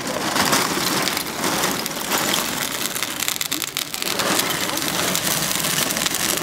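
Crackling and hissing of molten bell bronze running through open sand channels in a foundry floor, with the scrape of workers' iron tools in it.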